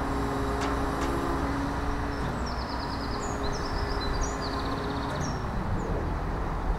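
Diesel engine of a Demag/Terex AC 200-1 telescopic mobile crane running steadily, a low hum that fades out about five seconds in, with wind rumbling on the microphone. A few quick bird chirps sound in the middle.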